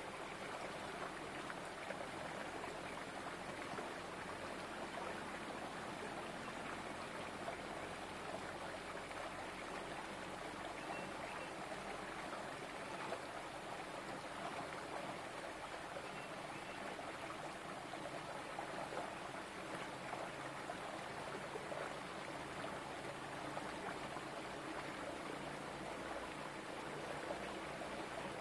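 Small rocky stream running steadily, water pouring through a narrow gap between boulders into a pool.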